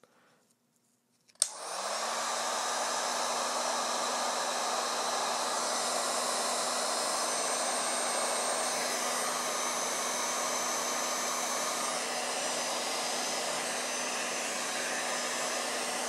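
Electric heat gun switched on with a click about a second and a half in; its fan motor spins up, then it blows steadily with a low hum. It is heating heat-shrink tubing over a speaker cable.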